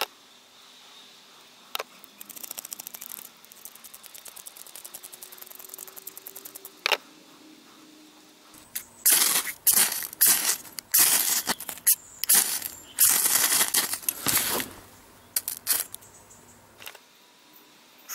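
Fungus tinder rubbed and crumbled between the fingers, with a couple of light clicks, then a ferrocerium fire steel scraped hard with a striker, about a dozen quick rasping strokes in a row throwing sparks onto the tinder.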